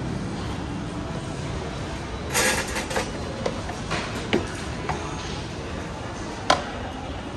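Thin metal skewers clattering and clicking as they are handled, with a burst of rattling about two and a half seconds in, a few lighter clicks after it and one sharp click near the end, over a steady background hum.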